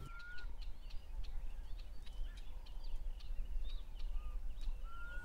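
Birds chirping and calling: many short high chirps throughout, with a clear short rising whistle at the start and another near the end, over a low steady rumble.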